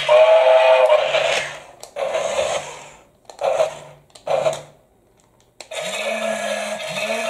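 Toy gear motor of a remote-control transforming Thomas the Tank Engine robot whirring in three short bursts as the toy engine drives and turns on a table. Electronic music plays for about the first second and a half and starts again near the end.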